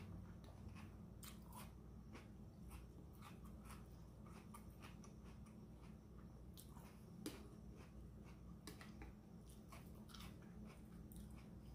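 Faint close-up mouth sounds of chewing crunchy diced cucumber and jicama in ceviche, a scatter of small crunches and wet clicks, with a metal spoon scraping and tapping in the dish and one sharper click about seven seconds in.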